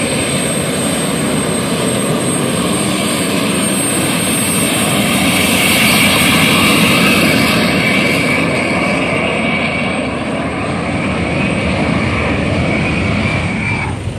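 Jet engine of a jet-powered drag scooter making a run down the strip: a steady high whine over a loud rushing blast, loudest about six to seven seconds in, then easing off as it pulls away.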